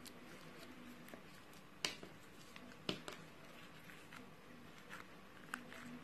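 Fingertips pressing and squeezing crunchy slime with foam beads: scattered sharp pops and crackles, the loudest about two and three seconds in, over a faint steady hum.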